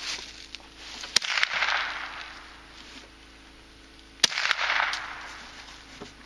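Two shots from a Ruger .22 Long Rifle rifle, about three seconds apart, each a sharp crack followed by a short fading echo.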